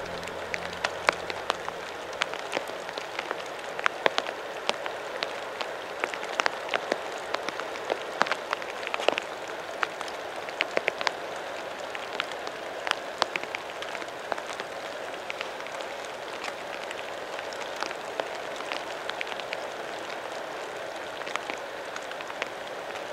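Steady rush of a swollen river pouring over a weir, with many irregular sharp ticks on top, thickest in the first half.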